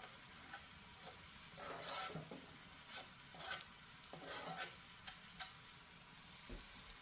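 Chopped onion and celery sizzling faintly in melted butter in a pot, being stirred now and then with short swishing strokes.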